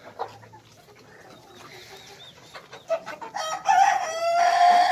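Young Australorp chickens clucking softly, then a young Australorp cockerel crows about three and a half seconds in: a few short notes, then one long held final note, the loudest sound.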